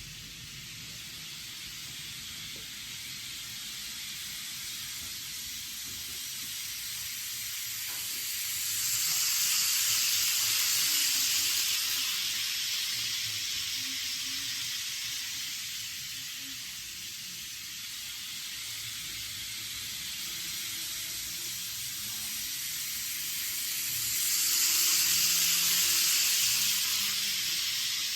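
N gauge model Shinkansen 500 series train running on its track, its wheels and small motor making a steady high hissing rush. The rush swells louder twice, about a third of the way in and again near the end, as the train comes close.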